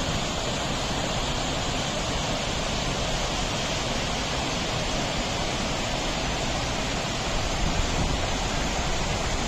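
Bridal Veil Falls pouring, a steady, even rush of falling water.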